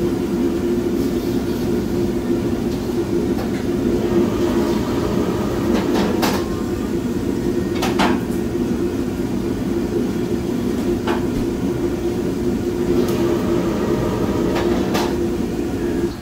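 Commercial gas wok burner running at full flame, a loud steady rush with a low hum, cutting off suddenly near the end as it is turned down. A few sharp knocks, like utensils striking the wok, sound over it.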